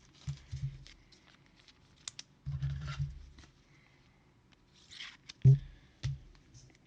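Trading cards being handled at a table: soft rustles and small clicks of card stock, with a sharper knock about five and a half seconds in.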